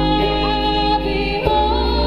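Live band music: electric guitar over a sustained bass, with a woman singing.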